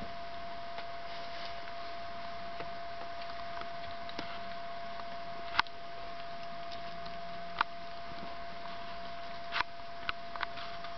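A steady high hum runs throughout, with a handful of sharp clicks over it: the loudest about halfway through, then two more about two seconds apart, and a couple close together near the end.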